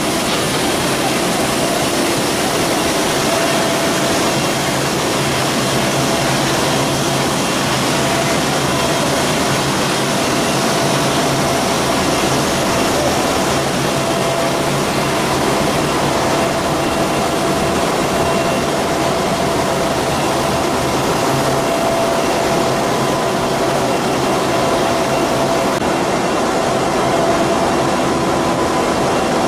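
Steady industrial machinery noise of a copper rod continuous casting and rolling line: a dense, even hiss and hum, with a faint steady tone that comes and goes.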